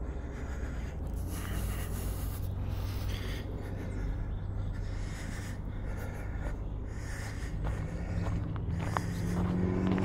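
Steady low rumble of road traffic, with a vehicle's engine growing louder near the end, over the scuff of footsteps on a trail.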